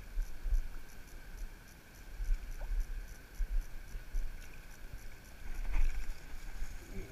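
Wind buffeting the camera microphone in uneven gusts over moving river water. About six seconds in, a louder splash as a landing net is pushed into the water around a brown trout.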